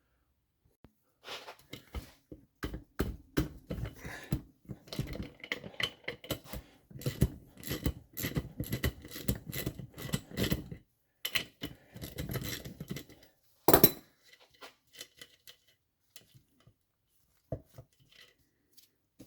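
Metal engine parts and tools clinking and clattering as a small Tomos moped engine is dismantled by hand, with one loudest knock near the middle and only scattered clicks after it.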